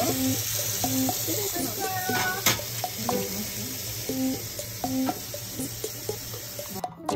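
Food sizzling as it fries, a steady hiss, with a sharp click about two and a half seconds in.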